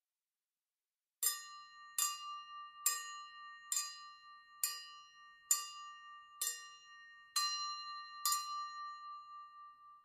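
Silverware struck over and over so that it rings: nine sharp metallic strikes a little under a second apart, starting about a second in. Each leaves a clear ringing tone that carries into the next strike and dies away slowly after the last.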